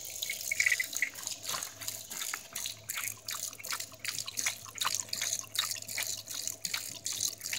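A dog licking and lapping water that drips from a garden hose nozzle: irregular wet clicks and drips, several a second.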